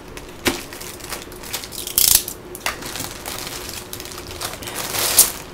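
Clear plastic bag crinkling and rustling as it is cut open and slid off a laptop, with sharper crackles about half a second, two seconds and five seconds in.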